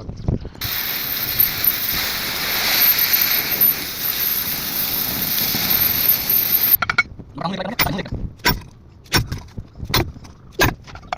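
Welding arc hissing and crackling steadily for about six seconds, with a thin high whine, then cutting off suddenly; a series of about eight sharp taps follows.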